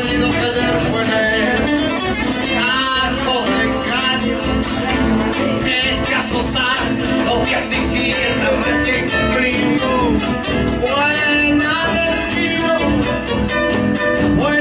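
Argentine folk music played steadily, led by guitar with a melody line gliding above it.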